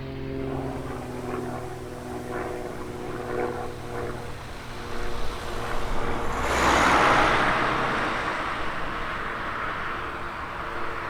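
Light propeller aircraft engine running steadily, then passing close: the engine and propeller noise swells to a peak about six to seven seconds in and fades away afterwards.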